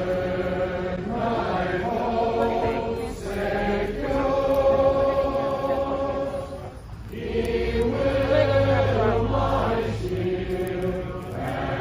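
A crowd singing a hymn together in long held notes, in phrases of a few seconds with short breaks between.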